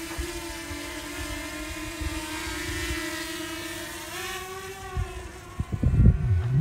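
DJI Mini 2 quadcopter's propellers humming steadily in a hover, the pitch rising briefly about four seconds in as it climbs. Near the end, gusts of wind rumble on the microphone.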